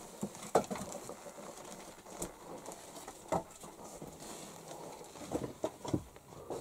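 A few sparse, light wooden knocks and taps, irregularly spaced, as pieces of wet split firewood are laid on a high shelf to dry.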